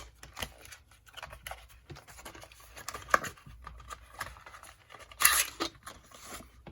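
A small multi-tool being worked open by hand: scattered clicks and scrapes, with a louder rasping burst about five seconds in.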